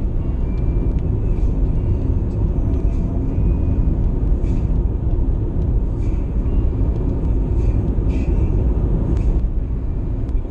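Steady road and engine rumble of a car cruising on a highway, heard from inside the cabin.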